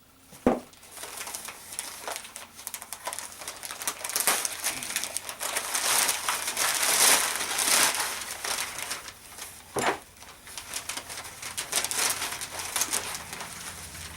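Packing material crinkling and rustling as a package is unwrapped by hand, with a couple of sharp knocks, one about half a second in and one near ten seconds.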